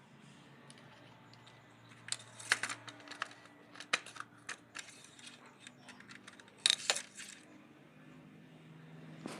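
A scattered run of light, sharp clicks and clinks of small hard objects being handled, with the loudest clusters about two and a half seconds in and around seven seconds, over a faint steady hum.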